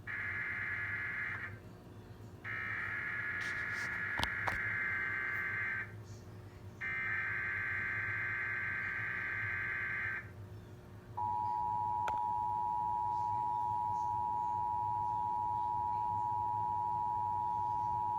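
Emergency Alert System activation tones: three bursts of SAME digital header data, each followed by a short gap, then the steady two-tone attention signal, a dual-pitched beep, starting about eleven seconds in. These tones mark the start of an EAS alert, here a test for the Virginia tornado drill.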